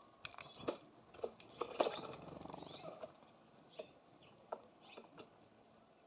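Small songbirds at a feeder: scattered sharp taps and pecks, a few short high chip calls, and a brief rustle of activity about two seconds in.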